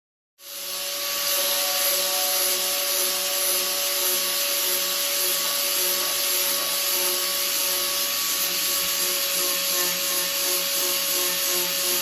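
Electric sander or grinder running steadily with a constant motor whine over a loud abrasive hiss, stripping old paint back to bare metal. It cuts in suddenly just under half a second in.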